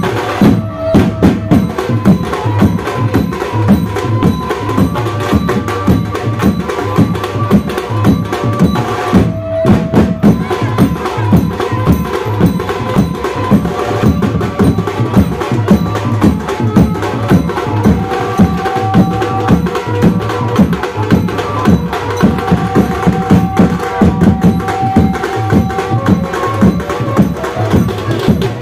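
Band music with a fast, steady drum beat and held keyboard-like melody notes over it. The beat breaks off briefly just after the start and again about a third of the way in.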